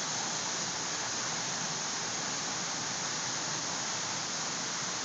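Steady rushing of a waterfall pouring into a pool, even and unbroken.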